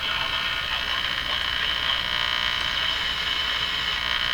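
Admiral Y846 five-tube AM radio's speaker giving a steady harsh buzz of interference, picked up from an outdoor antenna coupled to the radio through a loop.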